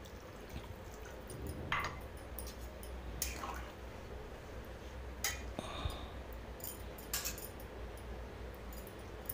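Spoon stirring a thin, watery curry in a metal kadai, with a few sharp clinks and scrapes against the pan, after water is poured in from a cup at the start.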